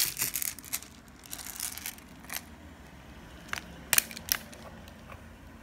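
Plastic beads being cut and pulled off a strung beadwork piece with small cutters: a scattered series of sharp clicks and snips, several close together in the first two seconds, then a few more spaced out.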